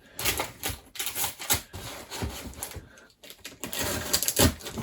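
A large cardboard box being opened by hand: irregular scraping, rustling and small knocks of cardboard and packing tape.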